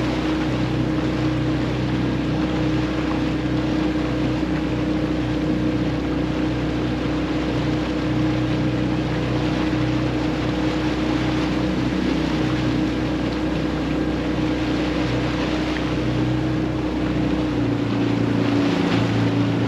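Small boat's engine running steadily, with wind and water noise; the engine note changes near the end.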